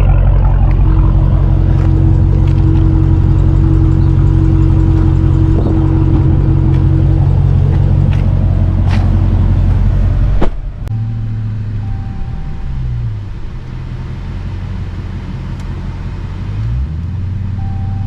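Dodge Charger Hellcat Redeye's supercharged 6.2-litre V8 drone while the car drives at a steady speed. About ten seconds in, a sharp click is followed by a quieter engine drone that shifts in pitch twice.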